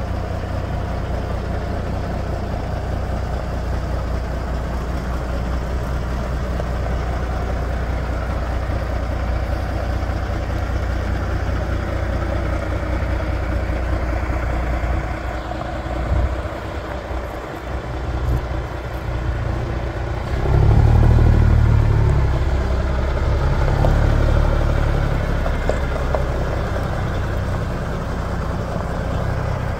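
Kenworth W900 tractor truck's diesel engine idling steadily, growing louder for a few seconds about two-thirds of the way through.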